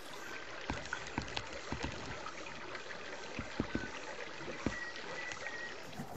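Shallow stream trickling and gurgling, with a scattering of short, low plops.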